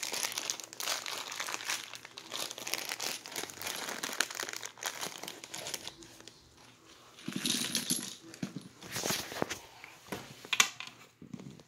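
Packaging crinkling and rustling as a game's parts are unwrapped, in irregular handling bursts, with a sharp click near the end.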